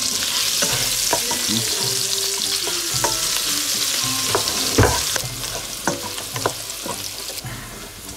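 Diced bacon sizzling in hot oil in a nonstick pan, stirred with a spatula that clicks and scrapes against the pan, with one louder knock just under five seconds in. The sizzle is strong at first and dies down in the second half.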